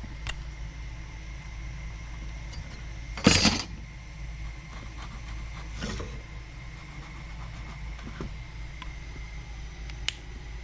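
Steady low background hum, with one brief loud clatter a little over three seconds in and a few light taps later, as tools and parts are handled on a workbench.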